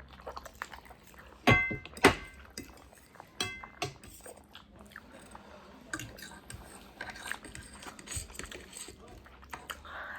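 Utensils clinking against a dish while eating noodles: three sharp clinks that ring briefly, about a second and a half, two, and three and a half seconds in, with fainter clicks and small eating sounds between.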